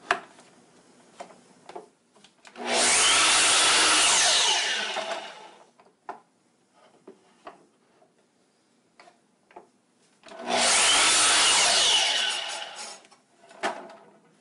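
Miter saw making two cuts through a wooden board about eight seconds apart: each time the motor starts suddenly, the blade cuts through, and it spins down. Between the cuts there are light knocks and clicks as the board and flip stop are repositioned.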